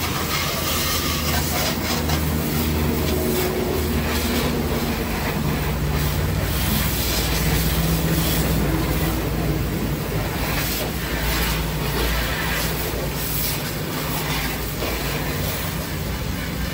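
High-pressure car-wash hose spraying a jet of water onto the underside of a car raised on a lift, a steady hiss and splatter over the constant low hum of the washer's pump motor.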